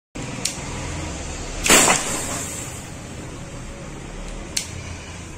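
Webley Mark VI CO2 revolver fired once, a sharp gas pop about two seconds in. A light click comes shortly before the shot and another near the end.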